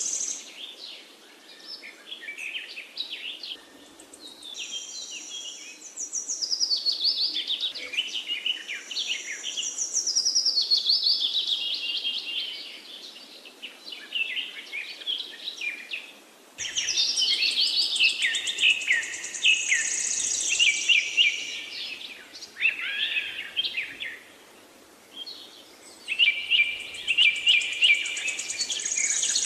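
Wild birds singing and chirping in overlapping bouts of quick trills and falling phrases, with brief quieter lulls between them.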